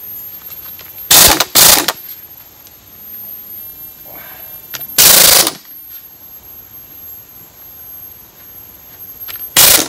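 3/4-inch air impact wrench hammering in four short bursts of about half a second each, two in quick succession near the start, one in the middle and one near the end. The stuck part does not come free, and the owner suspects the wrench is probably not getting enough air through its small airline.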